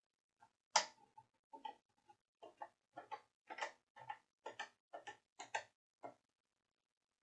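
Faint, irregular clicks and knocks, roughly two a second, the loudest about a second in, from the microscope and circuit board being handled and shifted into position on the bench. They stop a second before the end.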